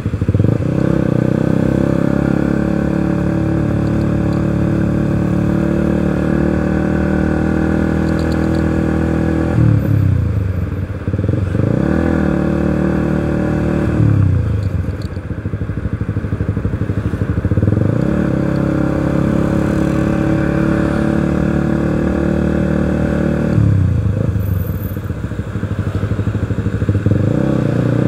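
Suzuki scooter engine running while riding. Its pitch falls as the throttle eases off about ten, fourteen and twenty-four seconds in, and climbs again each time it is opened.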